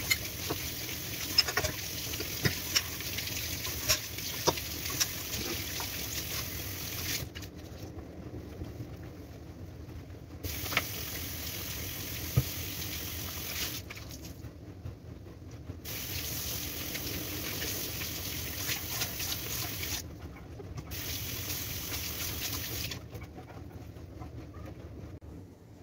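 Kitchen tap water running into a sink during hand dish-washing, with sharp knocks and clinks of dishes in the first few seconds. The flow stops and starts several times and is off near the end.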